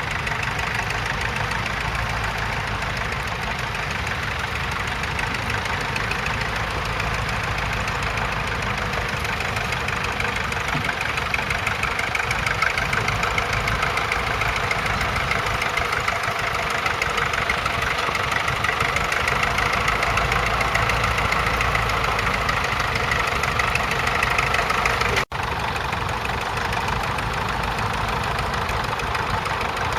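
Vintage crawler tractor's engine running steadily under ploughing load, with a brief break in the sound about 25 seconds in.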